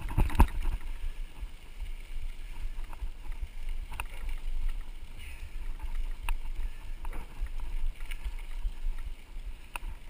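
Mountain bike rolling down a dirt road, heard from a camera mounted on the bike: a steady low rumble of wind and tyre noise, with scattered clicks and knocks as the bike jolts over bumps, the loudest one at the very start.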